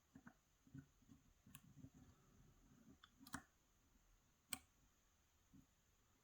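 Faint scraping and tapping of a lock pick working the pins inside a Yale 2000 Plus dimple-pin lock, with a few sharp clicks, the loudest about four and a half seconds in.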